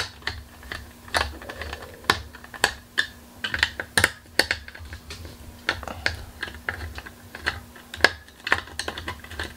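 Small screwdriver turning screws out of the metal cooler shroud of an XFX GeForce 8800 GTX graphics card: a string of irregular light clicks and scrapes, roughly one or two a second.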